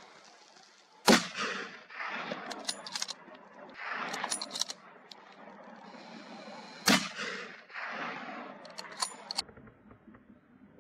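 Two hunting rifle shots about six seconds apart, each sharp and followed by a trailing echo. Quieter rustling and a few small clicks come between them.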